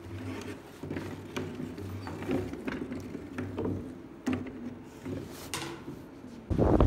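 Wooden ship's wheel being turned by hand, its hub giving off irregular clicks and knocks. Near the end, loud wind noise on the microphone cuts in.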